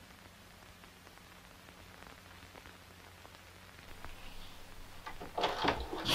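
A wooden door being handled: quiet at first, then a cluster of knocks and clicks in the last second or so, with the loudest knock right at the end.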